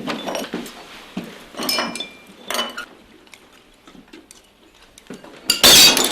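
Bowls, plates and chopsticks clinking at a dinner table, then a sudden loud crash of crockery near the end.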